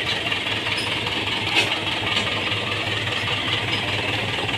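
Mahindra tractor diesel engine running steadily, with one brief louder moment about a second and a half in.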